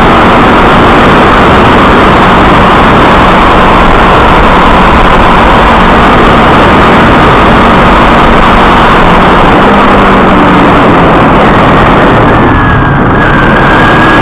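Kawasaki Ninja 250R parallel-twin engine running while riding, under a loud, steady rush of wind noise on the onboard microphone. The engine pitch sags briefly near the end, then climbs again.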